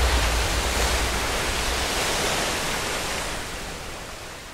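A steady, hissing rush of noise like surf or spray, fading out gradually toward the end.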